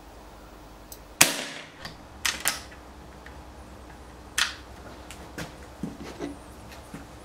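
Mk2 BSA Superten .22 pre-charged air rifle fired once without a pellet through a Veerac silencer. There is a single sharp crack about a second in that dies away quickly, then a few lighter clicks.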